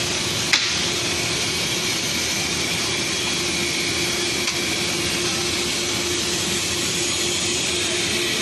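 Steady running noise of a PVC foam board production line: a continuous hiss with a steady hum, and one sharp click about half a second in.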